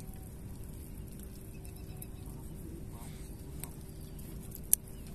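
Steady low outdoor background rumble with a faint constant hum, a few light ticks, and one sharp click near the end.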